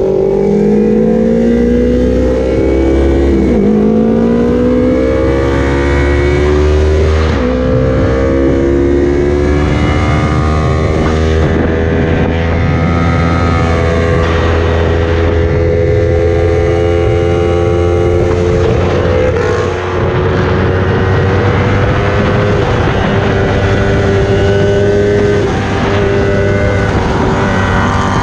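Sport motorcycle engine heard from on board at speed, rising in pitch through several gear changes in the first dozen seconds, then holding a mostly steady pitch, over constant wind rush on the microphone.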